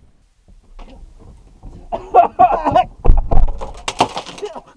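People climbing into a car and its doors thudding shut, with heavy thuds a little past halfway and a sharp knock near the end, alongside a brief voice-like sound.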